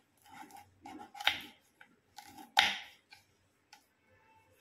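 Kitchen knife slicing spine gourds (kantola) on a wooden chopping board: a run of crisp cuts, the two loudest just over a second apart in the middle.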